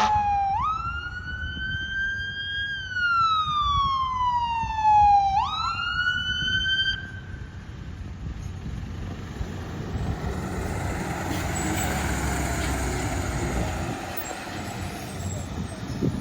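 Fire engine siren wailing: it sweeps up sharply, climbs slowly, falls back down, then sweeps up again and stops about seven seconds in. A steady rush of road and traffic noise follows.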